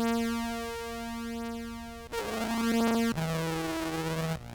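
Contrabass clarinet in its low range played through octave and synth pedals (EHX POG2 into a Meris Enzo), giving sustained synth-like tones; the note changes about two seconds in and again about three seconds in. The synth voice has trouble holding on to the lowest notes: it has nothing to sustain onto.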